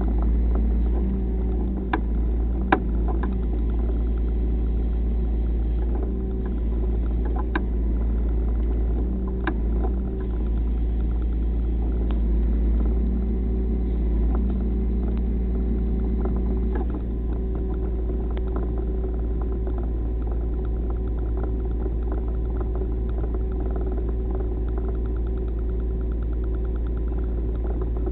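An engine idling steadily, with a few sharp clicks in the first ten seconds.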